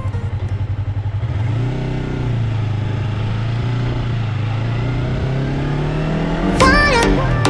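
Yamaha motorcycle engine chugging with an even pulse at low revs, then pulling away, its note rising slowly as it gathers speed. Near the end comes a short, loud sound of several tones bending up and down.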